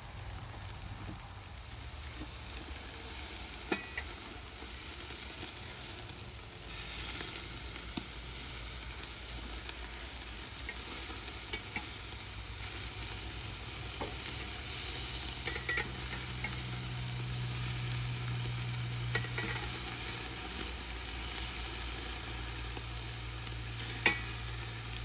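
Hamburger patties sizzling steadily on a charcoal kamado grill, with a few sharp clicks as they are turned.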